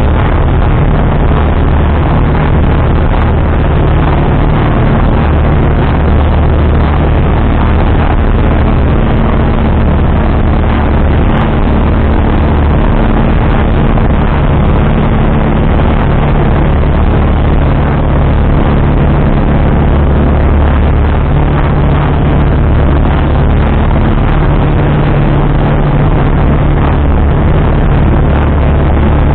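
Light single-engine aircraft's engine and propeller droning steadily, heard from inside the cockpit, with a constant rushing noise over the drone.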